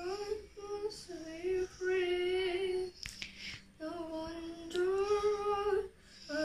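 A girl singing a slow melody of long, held notes with short breaks between phrases, and a brief noise about three seconds in.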